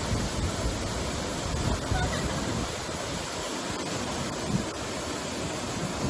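Waterfall pouring into a rock pool: a steady rush of falling water, with wind buffeting the microphone in low gusts.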